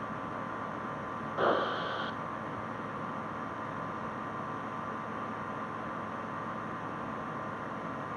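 Steady hiss and hum of a light aircraft's cockpit audio in cruise, the engine and airflow heard through the headset or intercom feed. About a second and a half in there is a short electronic blip, about half a second long.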